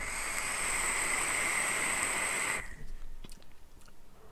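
Long draw on a vape with a single-coil rebuildable atomizer: a steady hiss of air and sizzling coil with a thin, high whistle, lasting about two and a half seconds and then stopping suddenly. A few faint clicks follow.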